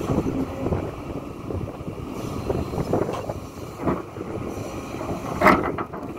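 Hidromek 230LC crawler excavator at work, its diesel engine running with a steady low noise. There are two sharp knocks, about four seconds in and a louder one near the end.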